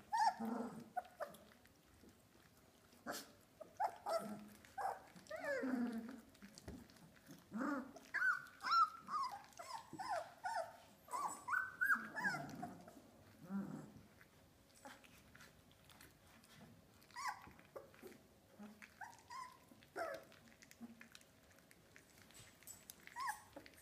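Three-week-old Australian Labradoodle puppies giving short, high-pitched whines and yelps, the calls bending up and down in pitch and coming thickest in a run from about 8 to 13 seconds in, with scattered light clicks between them.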